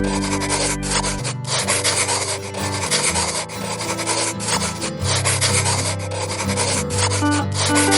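Pen scratching across paper in quick back-and-forth strokes, colouring in a drawing, over background music with held low notes.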